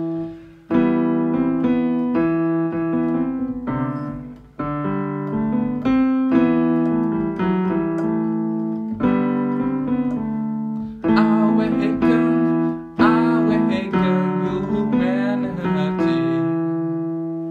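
Background keyboard music: slow piano chords struck every few seconds, each left to ring and fade before the next.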